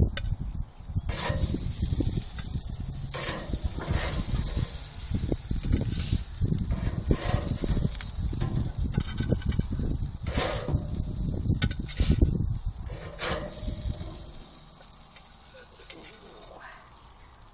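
Hamburger patties sizzling on a gas grill, with a metal spatula scraping and clicking against the grate as the burgers are lifted off, about eight sharp scrapes. The sound fades in the last few seconds once the grill is cleared.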